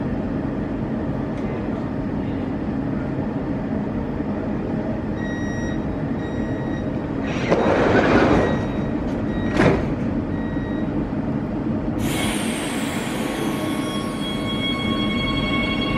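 Metro train at a platform: a steady hum from the standing train, then repeated door-closing warning beeps, the doors sliding shut about eight seconds in and closing with a sharp knock a moment later. About twelve seconds in, the traction motors start with a whine of several steady tones as the train begins to pull away.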